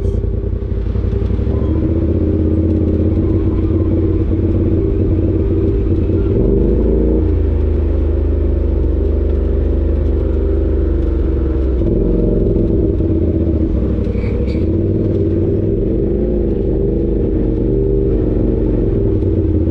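Side-by-side UTV engine running steadily while driving a dirt trail. The engine note shifts in pitch about a third of the way in and again about two-thirds through.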